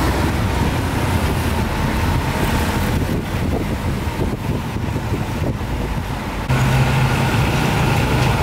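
Street traffic noise with motor engines running. About six and a half seconds in, the sound changes abruptly to a louder, steady engine hum.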